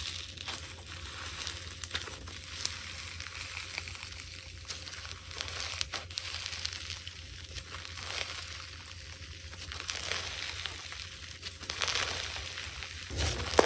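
Slime being squished and kneaded by hand: a steady wet crackling with many small pops and clicks, getting louder near the end.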